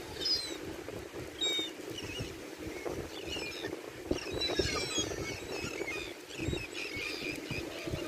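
A flock of gulls calling: many short, high calls overlapping, busiest from about three seconds in, over a steady rushing background.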